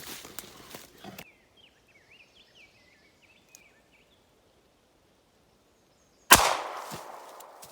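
A single .38 Special shot from a Ruger LCR snub-nosed revolver with a 1.9-inch barrel, firing an Underwood 150-grain standard-pressure lead wadcutter. It is one sharp, loud report about six seconds in, trailing off over about a second.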